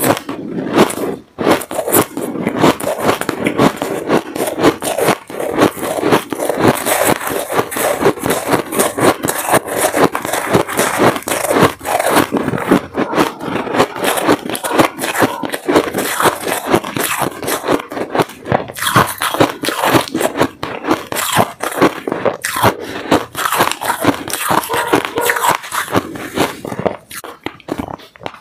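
Close-miked shaved ice crunching: a metal spoon scrapes and scoops through a heaped bowl of shaved ice while mouthfuls are bitten and chewed, making a dense, unbroken crackle.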